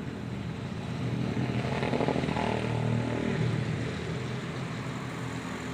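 A motor engine passing by, growing louder for about two seconds and then easing off.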